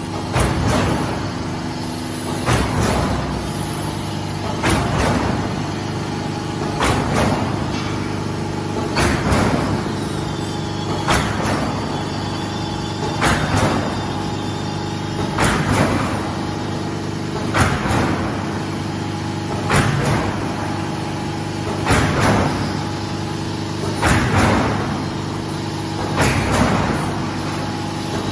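Silo corrugated-sheet roll forming machine running, with a steady motor hum. About every two seconds a sharp burst of noise comes from the line and dies away within half a second, a regular working cycle.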